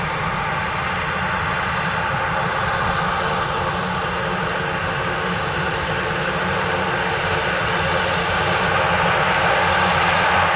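Beechcraft (Textron) B200GT King Air's twin Pratt & Whitney PT6A turboprop engines running at taxi power: a steady turbine whine over propeller drone, growing a little louder near the end as the aircraft taxis closer.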